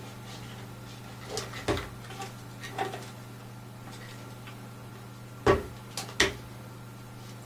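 Small clicks and knocks of a plastic snorkel and dive mask being handled while a rubber ring is worked onto the snorkel tube, with two sharper clicks about two-thirds of the way through. A low steady hum runs underneath.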